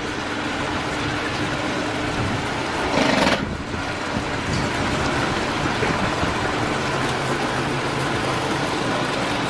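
Steady rush of moving water in a boat lock chamber, with a faint low engine hum under it. About three seconds in there is a brief louder splash.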